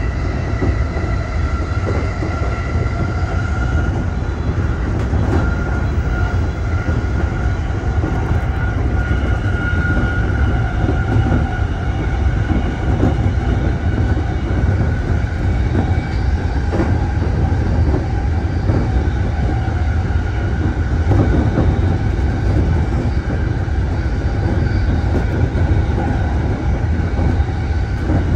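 E231-series electric commuter train running steadily at speed: a heavy rumble of wheels on rail, a steady whine of several held tones, and a few faint knocks.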